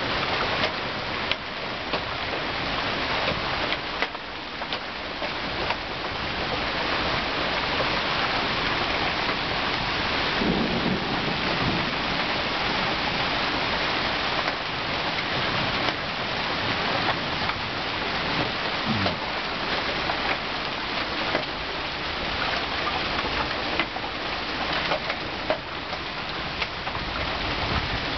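Heavy rain pouring down in a severe thunderstorm: a dense, steady hiss with many sharp taps of drops striking close by.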